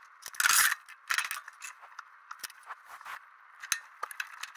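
Kindling and split wood knocking and scraping as they are laid on the cast iron grate of a wood stove firebox: scattered clicks and rattles, with a louder scrape about half a second in.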